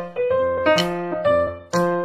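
Background music: a keyboard melody with a new note struck roughly every half second.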